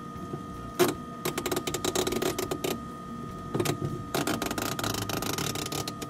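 Refrigerator defrost timer ratcheting as its advance screw is turned by hand with a screwdriver, to step the timer toward its defrost cycle: one click about a second in, then two runs of rapid clicking.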